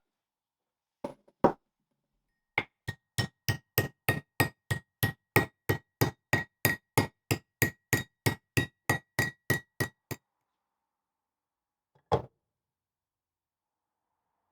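A hammer tapping a metal part: two knocks, then a steady run of quick strikes, about three or four a second, each with a short metallic ring, stopping abruptly, and one more knock near the end.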